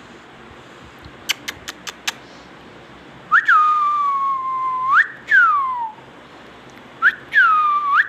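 Indian ringneck parrot whistling: a few sharp clicks about a second in, then from about halfway clear, loud whistles. There are two long held notes that each flick up at the start and sag slowly, and between them one whistle sliding down.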